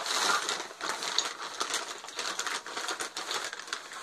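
A brown paper carrier bag rustling and crinkling as it is lifted out and handled, with small sharp crackles throughout, loudest right at the start.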